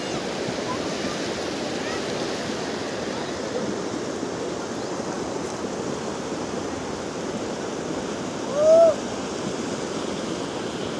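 Kosi river in flood: fast, muddy water rushing past a gravel bank, a steady rush. About eight and a half seconds in, a short, loud rising-and-falling call cuts through once.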